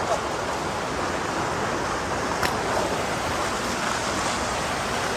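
Rushing water with a steady, even roar, and a single sharp click about halfway through.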